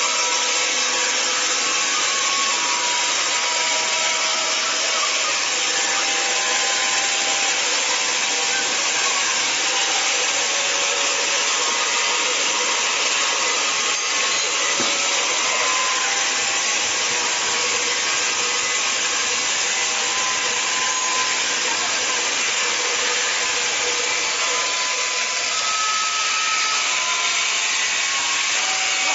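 Horizontal band sawmill (MJ1600E) blade cutting lengthwise through a log: a steady, even hiss of sawing, with faint wavering tones underneath.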